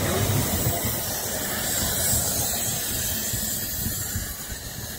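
Steam hissing from a narrow-gauge steam train as its last coaches roll past and away, over a low rumble that slowly fades.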